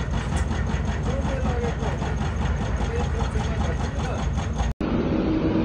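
Heavy machinery engine running steadily on a construction site, with a fast, even pulsing and faint voices behind it. It cuts off abruptly near the end.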